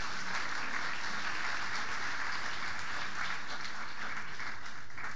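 Audience applauding, a steady even clapping that fades out at the very end.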